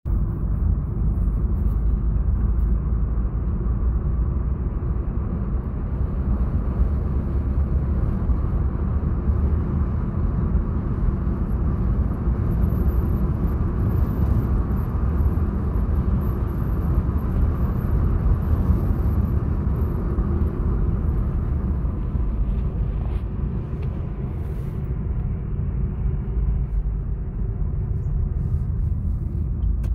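Road noise inside a moving car's cabin: a steady low rumble of engine and tyres on the road.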